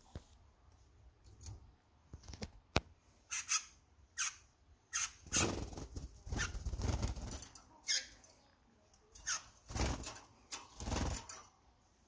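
Domestic canary's wings flapping in several short flurries as it flies and lands, the longest near the middle and more again near the end, with a sharp click about three seconds in.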